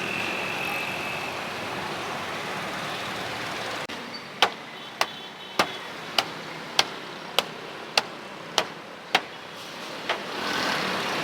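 Steady street and traffic noise, then a run of about nine sharp, evenly spaced knocks, roughly one every half-second, with a last weaker one after a pause.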